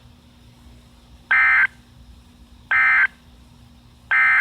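Three short bursts of Emergency Alert System SAME digital data tones, evenly spaced about a second and a half apart: the end-of-message code that closes a severe thunderstorm warning broadcast.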